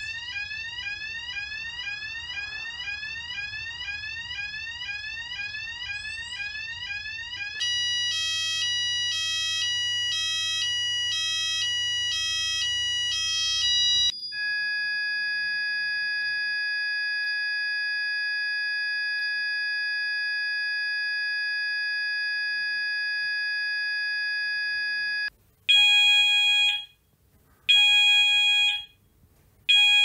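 Electronic fire alarm sounders playing a series of tones: first a fast rising sweep tone repeating several times a second from a Cranford Controls conventional sounder, then an alternating two-tone pattern. A steady continuous tone follows, the house sounders' signal that a shed alarm has been activated. Near the end it changes to a pulsed alert tone, three beeps about a second long: the garage sounders' alert for the investigation delay.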